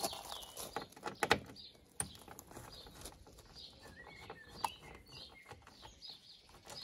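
Small birds chirping, with a few sharp clicks and taps, the loudest a little over a second in, as screws are worked out of a MINI F56's front panel by hand.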